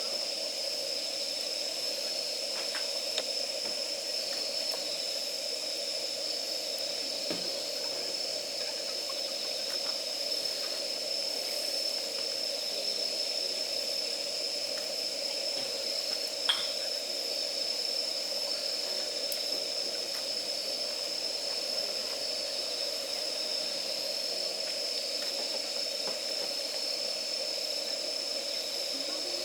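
Campfire of damp firewood burning with a steady hiss, a few faint crackles and one sharp pop midway through.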